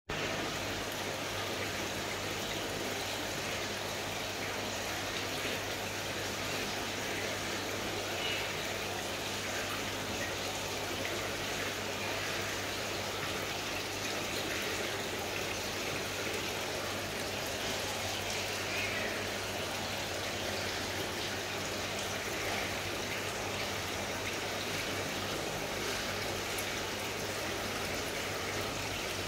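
Aquarium filtration running: steady trickling, splashing water with a low, even electrical hum from the pump.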